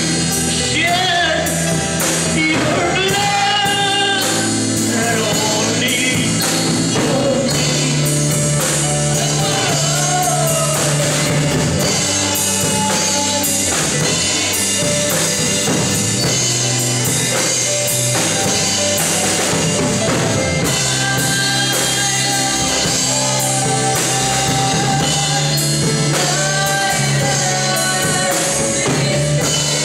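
Christian worship music: a singing voice over sustained chords and a steady drum-kit beat.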